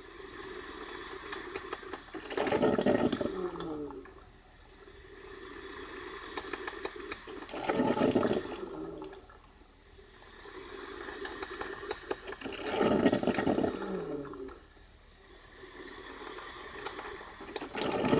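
Braun Type 4085 drip coffee maker brewing: water gurgles and sputters up through the heater into the filter in surges about every five seconds, each building to a louder burst and then easing off.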